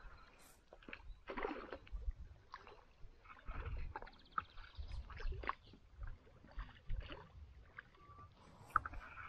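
Water splashing and sloshing around a small fishing boat, with scattered knocks and clicks and a low rumble of wind on the microphone. A brief run of fast, even ticking comes about three and a half seconds in.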